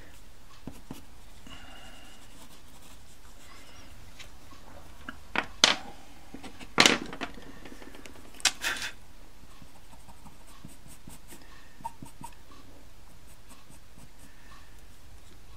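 Pastel pencils clicking and knocking as one is set down and another picked up: a few sharp knocks in the middle. Later, faint scratching of a pastel pencil on textured paper.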